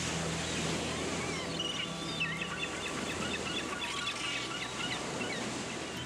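Small birds chirping quickly over a steady surf-like wash of noise. Low sustained music notes fade out about two and a half seconds in.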